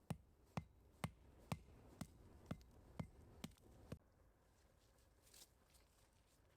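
A series of nine sharp knocks, evenly spaced at about two a second, stopping about four seconds in.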